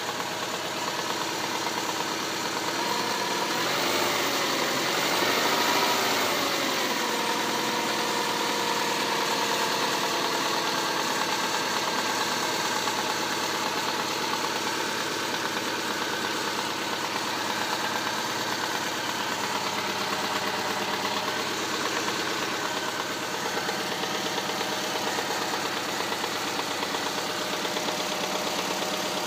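Subaru Impreza's EJ152 1.5-litre flat-four engine running at idle with a knock whose cause the owner does not know; the revs rise and fall back twice about four to six seconds in.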